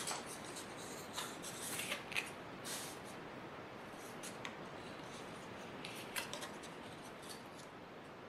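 Construction-paper leaf cutouts being handled and pressed flat onto watercolor paper: scattered soft paper rustles and brief crisp crackles.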